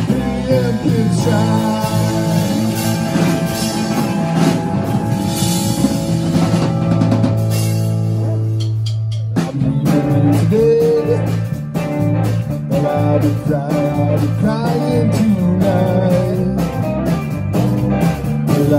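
Live band playing an instrumental passage on electric guitars, bass guitar and drum kit. About eight seconds in, a chord is held and fades, then the full band with drums comes back in about a second later.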